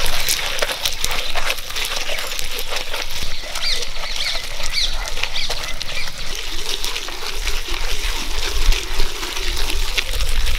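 Cylindrical stone grinding a wet spice paste in a traditional stone mortar (attukal), stone scraping on stone through the mash with a continuous crackling and crunching.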